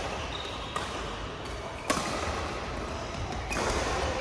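Badminton rally on an indoor court: sharp racket strikes on the shuttlecock, about four, the loudest about two seconds in, with short sneaker squeaks on the court floor between them.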